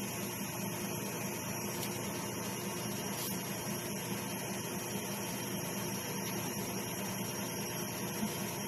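Steady low mechanical hum with an even hiss behind it, unchanging throughout, with no distinct knocks or clicks.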